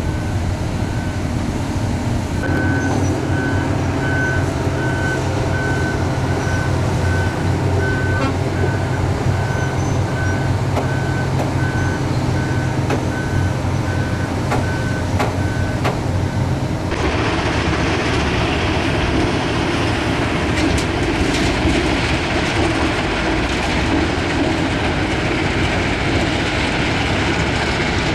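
Iron ore crushing and screening plant running with a steady heavy hum, while a vehicle's reversing alarm beeps at an even pace over it for much of the first half. About seventeen seconds in the sound switches abruptly to a louder, harsher machinery noise.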